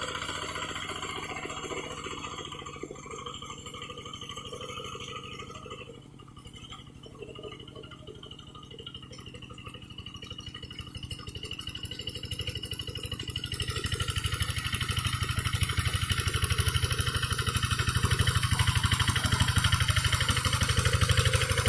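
Kubota RD single-cylinder diesel engine of a Quick G1000 hand tractor running under load while harrowing, with a steady rapid pulse of firing strokes. It fades somewhat, then grows clearly louder about two-thirds of the way through.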